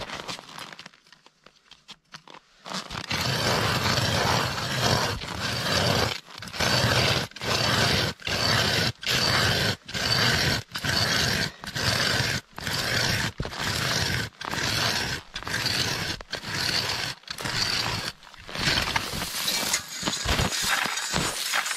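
Hand ice auger drilling through thick river ice: the blades scrape in even strokes, with a short break about every half second as the handle is cranked round. It is quiet for a couple of seconds near the start, and near the end the scraping turns rougher and uneven.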